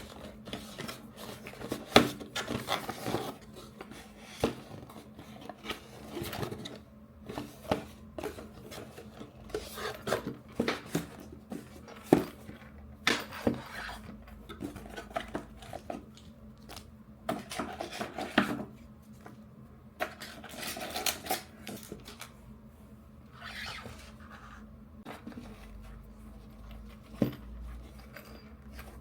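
Packaging and small items being handled and unpacked: scattered clicks, taps and rustling, with sharper clicks about two seconds and twelve seconds in.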